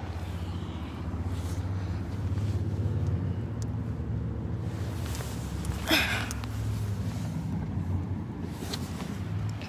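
Steady low engine hum, with a brief knock or rustle about six seconds in.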